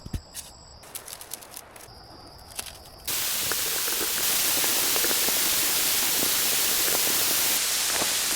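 Heavy rain: a steady, loud hiss that starts abruptly about three seconds in. Before it is a quieter stretch with scattered drips and clicks and a steady high tone.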